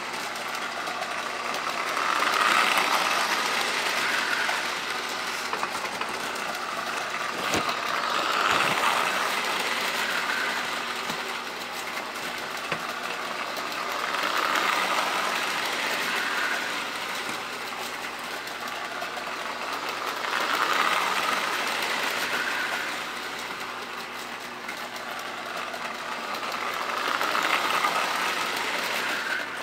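Vintage Lionel Cannonball toy train running laps of a small loop of metal track: the locomotive's motor and the wheels on the rails make a steady running noise that swells each time the train passes close, about every six seconds.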